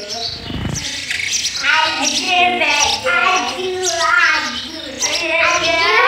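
House sparrow nestlings begging: a run of repeated, wavering cheeps, with a low thump about half a second in.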